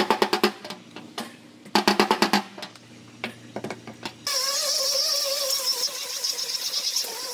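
Body hammer tapping rapidly on the steel quarter panel of a Nissan 370Z, in two quick ringing bursts. About four seconds in, a small disc sander starts up on the panel and runs steadily, with a wavering whine over a high hiss.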